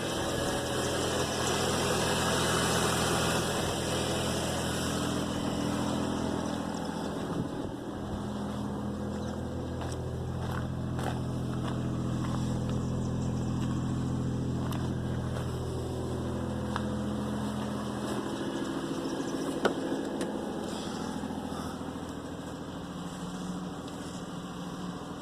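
GMC Envoy engine idling steadily while it warms up, with a low, even hum.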